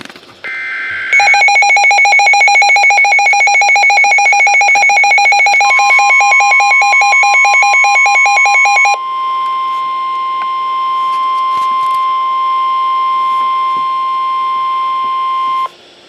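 Midland NOAA weather radio sounding an Emergency Alert System warning. The last burst of SAME header data tones comes first, then the radio's own rapid pulsing alarm beeps. About a third of the way in, the broadcast's steady 1050 Hz warning alarm tone joins. It carries on alone after the beeps stop and cuts off shortly before the end.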